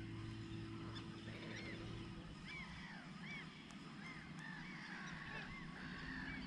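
Birds calling across the water: many short rising-and-falling calls, repeated every half second or so. A low steady hum stops about two seconds in.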